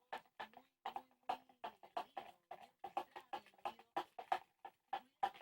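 A utensil stirring a slime mixture round a container, clicking against its sides about four times a second.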